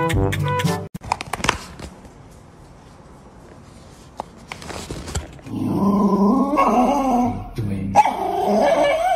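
Background music stops in the first second. About halfway through, a small dog starts making long, wavering vocal sounds, a longer stretch and then a shorter one.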